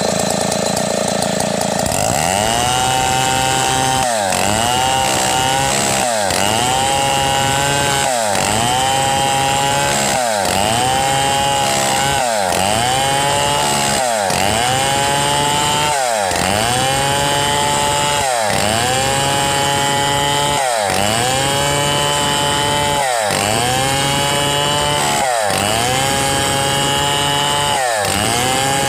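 Two-stroke chainsaw ripping lengthwise through a red meranti log, running at high speed with its engine pitch dipping and recovering about every two seconds as the chain bites into the wood.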